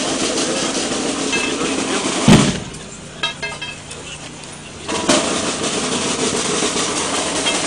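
Procession marcapaso drum cadence: a long snare-drum roll ending in a single bass-drum stroke about two seconds in, a quieter pause, then another long snare roll starting about five seconds in.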